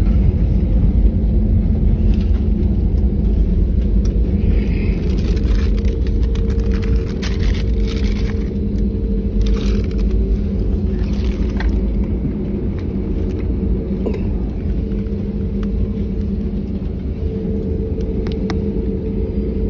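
Cabin noise of a narrow-body jet airliner rolling along the runway: a steady low rumble of engines and wheels with a steady hum, light rattles in the middle, slowly getting quieter.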